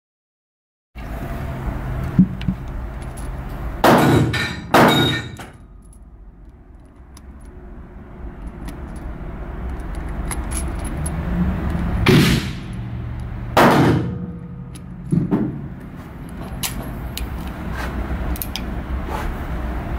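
Five gunshots echoing in an indoor range: two about a second apart, then three more a little later. Lighter metallic clicks of handling come between them.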